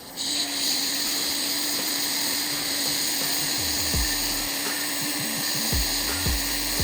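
A motor-driven blower is switched on and runs steadily: a loud airflow hiss with a steady hum. A few soft low thuds come in the second half.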